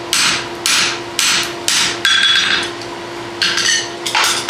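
Hand hammer striking a red-hot draft horseshoe on an anvil, about two blows a second. The fifth blow rings, then comes a short pause before two more blows.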